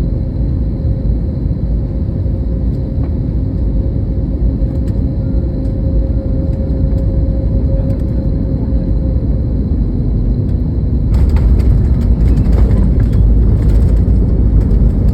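Jet airliner landing: a steady low rumble with a faint steady whine, then about eleven seconds in it grows louder with a rushing, rattling noise.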